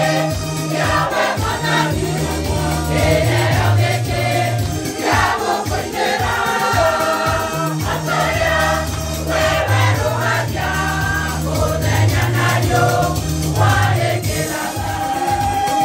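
Gospel choir singing over a backing track with a steady bass line and beat.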